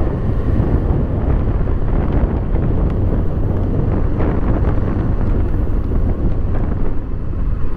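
Wind rushing over the rider's microphone while riding a Kawasaki Eliminator 450 motorcycle at steady expressway speed. The bike's engine drones under the wind noise.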